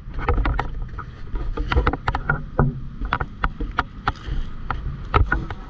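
Irregular clicks, knocks and rubbing from a handheld action camera being moved about, over a steady low rumble.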